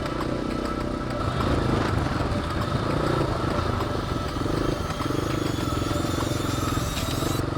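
Dirt bike engine running steadily under way, its pitch rising slowly. It cuts out briefly near the end.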